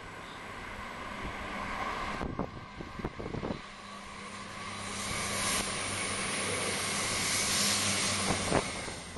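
Passenger train passing on the main line: a rushing noise with a steady hum that swells and fades, with a few knocks about two to three seconds in. The noise builds again to its loudest near the end.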